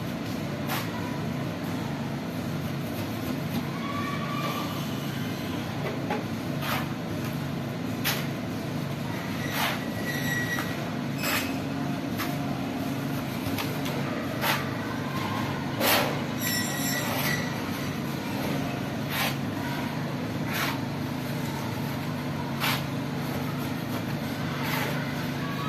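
A machine running with a steady low hum, with short sharp clicks every second or two.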